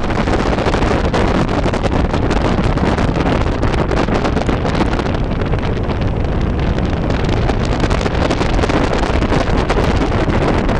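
Heavy wind buffeting the microphone at the side window of a van moving at speed, over the steady rush of its engine and tyres on the road.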